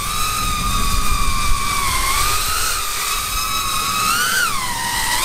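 Small 3.5-inch FPV freestyle quad's brushless motors and propellers whining in flight, the pitch wavering with throttle. The whine climbs sharply about four seconds in, then drops back near the end.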